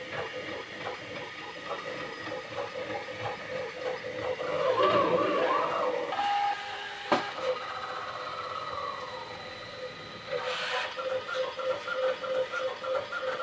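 Bambu Lab FDM 3D printer printing, its stepper motors whining in tones that rise, fall and shift as the print head moves. There is a sharp click about seven seconds in, and quick pulsing tones near the end.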